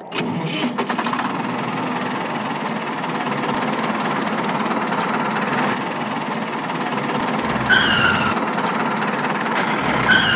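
A DIY mini tractor running, with a steady engine sound. Two short falling squeals come near the end.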